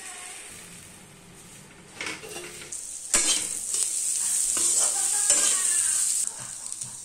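Potatoes, peanuts, peas and onions sizzling in oil in a metal kadhai as a spatula stirs them, scraping and clinking against the pan. The sizzling starts loudly about three seconds in and drops back near the end.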